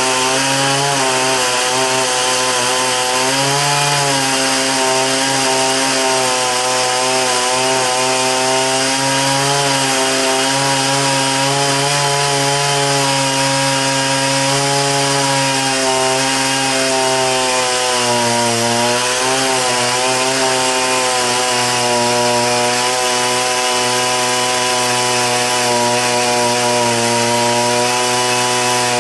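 Chainsaw running steadily while carving dry dead wood. Its engine pitch dips and recovers a few times as the chain bites in under load.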